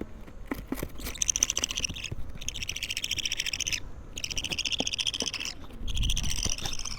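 Two-week-old budgerigar chick calling in four rapid, pulsing bouts, each lasting a little over a second, with short breaks between them.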